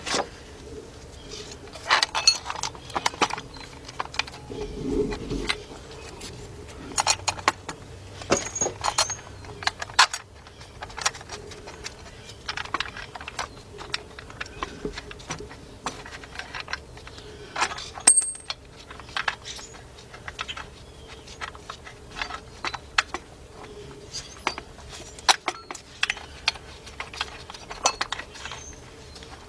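Irregular metal clinks, taps and clicks of hand tools and bolts while an engine bracket is being bolted on, over a faint steady hum.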